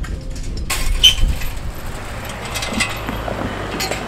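A car driving over a level crossing, with tyre and engine noise and a few sharp clinks. At the very start comes the brief low rumble of a freight train moving away.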